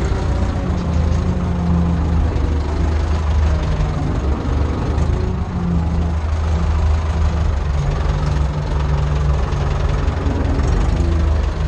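Ursus C-360 tractor's four-cylinder diesel engine running steadily, heard from inside the cab, with a low drone and a slight rise and fall in pitch.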